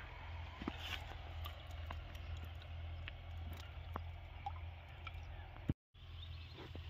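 Liquid insecticide poured from a small plastic bottle into a plastic bucket of water, a faint trickle and drips over a steady low hum. The sound drops out for a moment near the end.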